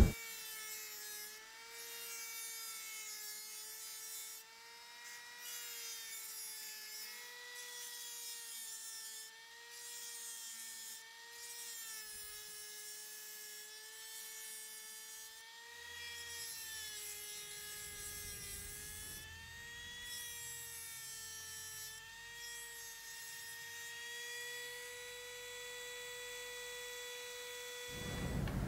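Small handheld rotary tool with a cut-off disc slitting a thin brass strip: a steady high motor whine whose pitch wavers up and down as the disc works through the metal.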